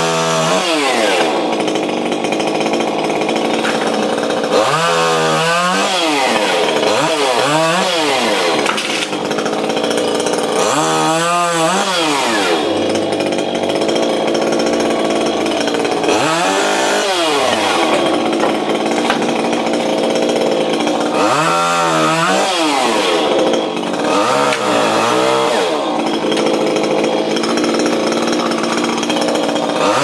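Stihl chainsaw running continuously at speed while cutting tree limbs, its sound sweeping up and down in pitch every few seconds.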